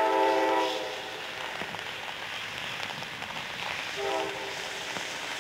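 Locomotive air horn on an approaching train, sounding a chord of several notes: one blast that cuts off about a second in, then a short blast about four seconds in, with steady noise in between.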